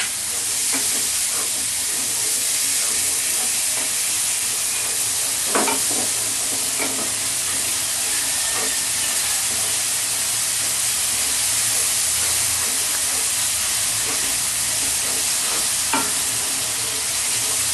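Onion paste with garlic and green chillies sizzling steadily in hot oil and ghee in a kadai, stirred with a few short knocks of the spatula against the pan.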